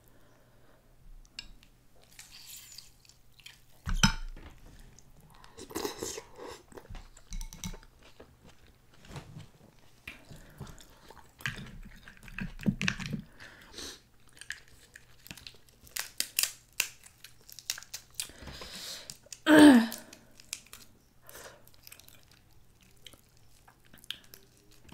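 Close-up eating sounds from crab legs: shells cracking and being pulled apart, and wet chewing of crab meat. These come as irregular clicks and crunches, with a louder crack about four seconds in.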